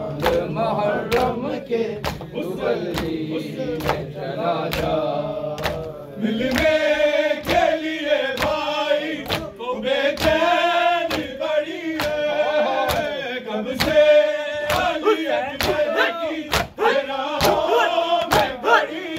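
Group of men chanting a nauha (mourning lament) in unison while beating their chests in matam, sharp slaps about two a second. About six seconds in the chant moves to a higher, louder line.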